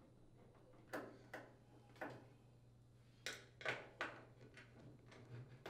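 Irregular light clicks and taps of a screwdriver working the screws out of a front-load washer's sheet-metal rear access panel, about half a dozen, over a faint steady low hum.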